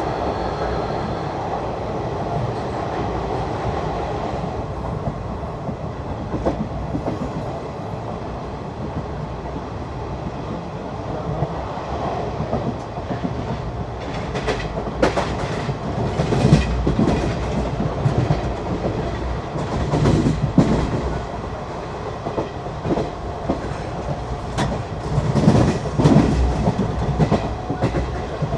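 Passenger coaches of an express train running through at speed: a steady rumble of wheels on rail, with clickety-clack knocks over rail joints and points growing louder and more frequent in the second half.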